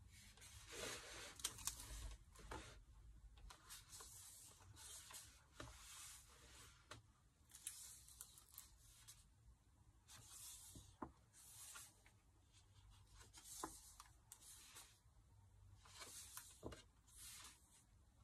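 Faint paper rustling and sliding as the pages of a concertina sketchbook are handled and turned, in short bursts every second or two with a few light taps.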